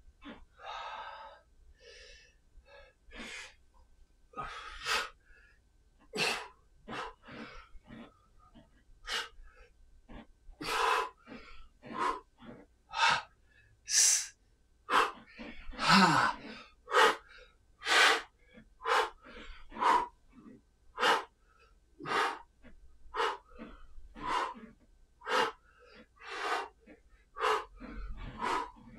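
A man breathing hard through a clubbell workout: short, sharp exhales about once a second, paced with each swing of the club.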